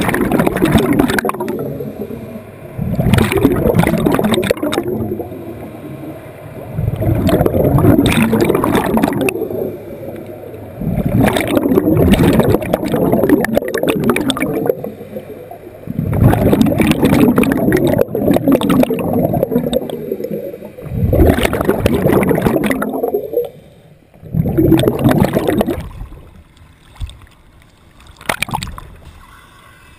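Scuba regulator exhaust heard underwater: exhaled breath bubbling out in bursts about every four seconds, each lasting a couple of seconds. The bubbling stops near the end, leaving a couple of short splashes.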